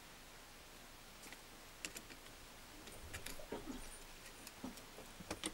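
Faint, scattered small clicks and taps of a screwdriver working screws and nudging metal and plastic parts inside a cassette deck's chassis, starting about a second in and coming more often toward the end.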